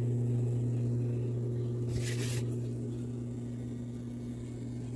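Portable countertop dishwasher's wash pump running with a steady low hum, while the water is not spraying up as it should. A brief hiss about two seconds in.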